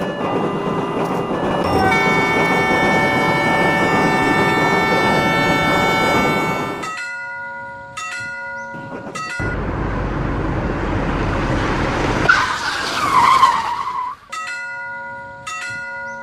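Railroad-crossing sound effects: a train running by with a multi-tone horn held for about five seconds, then crossing-signal bells dinging at an even pace. A rushing noise and a wavering screech follow, and the bells start dinging again near the end.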